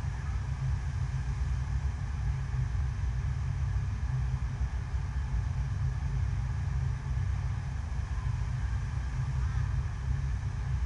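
Steady deep rumble of water being pumped up and rushing over an indoor artificial-wave surf simulator, running without a break.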